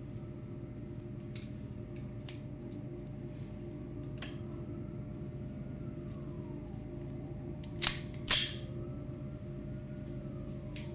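A steady low ambient hum with a faint tone that slowly rises and falls. Scattered faint clicks sound over it, then two sharp clicks follow each other quickly about eight seconds in.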